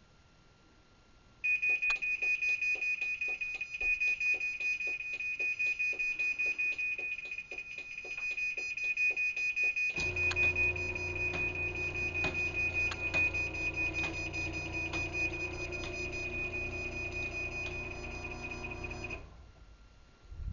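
Craftsman 1/2 hp belt-drive garage door opener sounding its timer-to-close warning, a loud high-pitched pulsing beep. About ten seconds in, its motor starts and runs with a steady hum under the continuing beeps. This is the opener closing the door automatically once the timer runs out. Motor and beeping cut off together shortly before the end.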